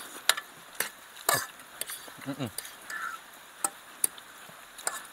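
Utensils clicking and scraping against enamel pots while noodles are slurped, with sharp clicks scattered through and a short vocal grunt a little after two seconds in.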